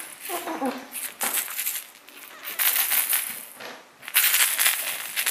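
Rustling and scratching handling noise against cloth and wicker as a hand moves young kittens about, in several uneven bursts. A short falling cry sounds about half a second in.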